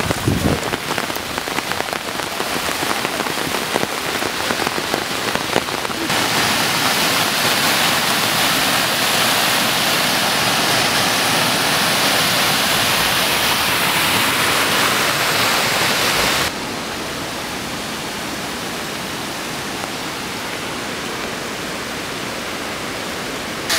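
Heavy rain falling steadily. About six seconds in, a louder, brighter rush of muddy floodwater cascading down stone steps cuts in. It cuts back to the softer hiss of rain on a flooded path about ten seconds later.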